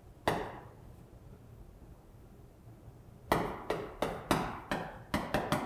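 Chalk on a chalkboard while characters are written: one sharp tap just after the start, then from about three seconds in a run of quick taps and strokes, two or three a second.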